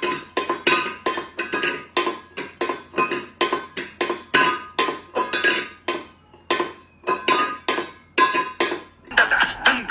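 Rapid, irregular clinking of hard objects, about three or four strikes a second, each ringing briefly at a few clear pitches, with a couple of short pauses.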